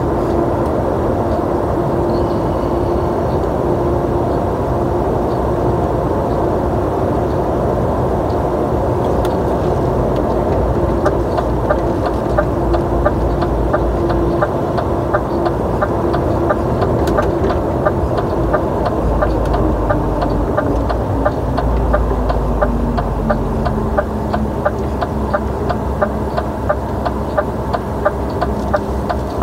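DAF truck running along the highway with a steady engine note that drops about twenty seconds in as the truck slows. From about eleven seconds in, a regular ticking at roughly two a second joins it.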